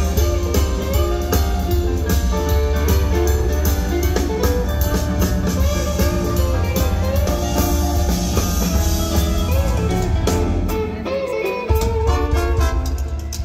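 Live swing and rock 'n' roll band playing an instrumental passage: a melodic lead line over drum kit and a driving bass. The bass drops out for about a second near the end, then the full band comes back in.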